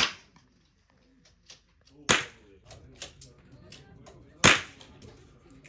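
Three loud, sharp cracks, about two and a half seconds apart, with fainter clicks in between.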